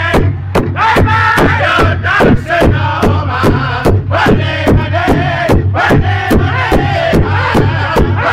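Pow wow drum group: several men striking one large hide-covered drum in unison at a steady beat of about three strokes a second, singing a chant together over it.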